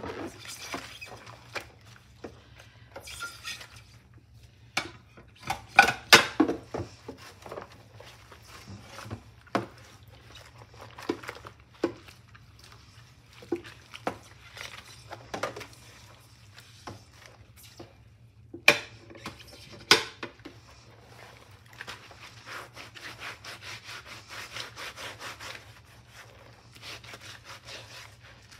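Dishwashing by hand in a soapy stainless-steel sink: rubber-gloved hands scrub ceramic plates with a sponge, with scattered knocks and clinks of the plates against the sink, loudest about six seconds in and again around nineteen to twenty seconds. In the last third it becomes a fast, even back-and-forth scrubbing.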